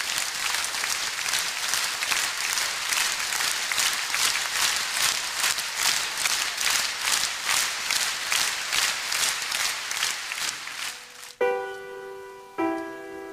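A large concert-hall audience applauding, the clapping falling into a regular beat of about two to three claps a second. About eleven seconds in the applause stops and two loud pitched chords are struck in quick succession, each ringing and fading.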